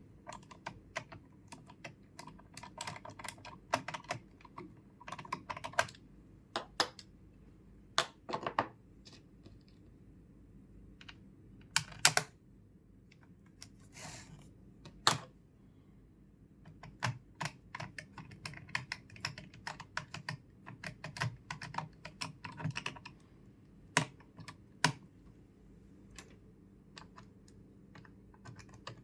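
Irregular clicking and tapping of hard parts being handled while a computer is put back together, with a handful of louder, sharper clicks.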